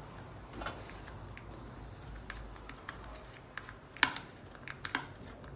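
Flat-blade screwdriver levering a wire connector plug up off an electric cooker's power supply board: a series of small scattered clicks and scrapes, the sharpest about four seconds in.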